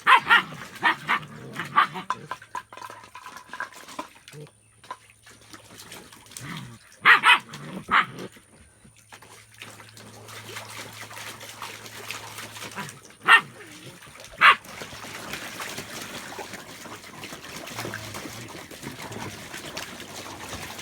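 German Shepherd puppies barking in short, sharp barks: a quick run of them at the start, then pairs of single barks spaced several seconds apart. In the last few seconds there is a steady trickle and splash of water.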